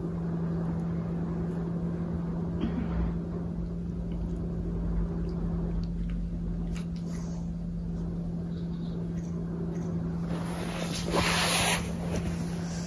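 Steady low hum, with faint rustles and small clicks of a long-haired cat grooming and licking its fur, and a louder brushing rustle lasting about a second near the end.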